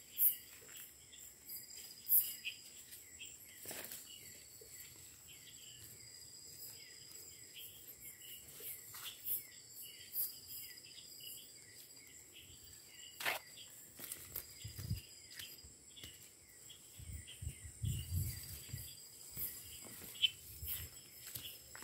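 Chorus of night insects in tropical forest: a steady high whine over rapid repeated chirping. There are scattered clicks, and a few soft low thuds near the end.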